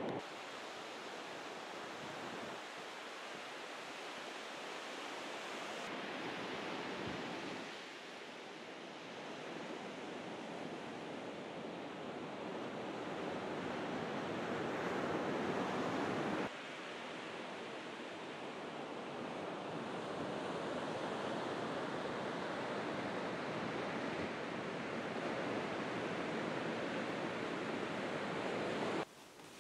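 Waves breaking and washing on a sandy beach, with wind: a steady rushing noise that jumps abruptly in level a couple of times and drops away near the end.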